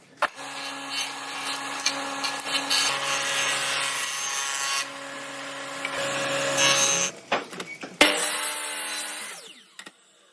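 A power tool running and working into wood: a steady motor hum under a rough, noisy cutting sound. It comes in several short clips that start and stop abruptly.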